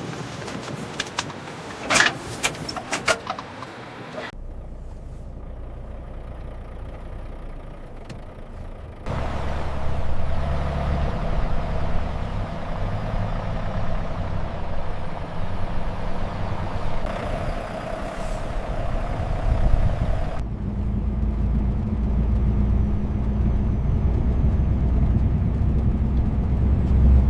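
Scania truck running with a steady low engine drone and road noise, in a few stretches that change abruptly. A run of sharp clicks and knocks in the first few seconds.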